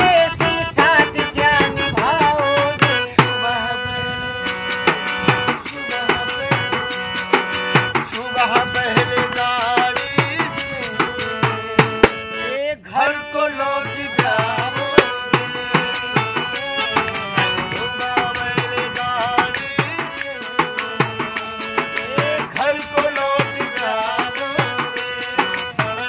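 Harmonium playing a melody in steady held notes, with a hand-held frame drum beating the rhythm: an instrumental folk interlude. The music briefly thins out just before the halfway point.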